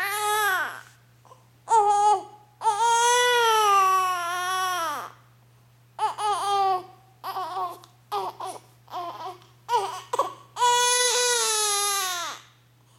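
A young baby crying: several long, high wails, with a run of short broken sobbing cries between them about seven to ten seconds in.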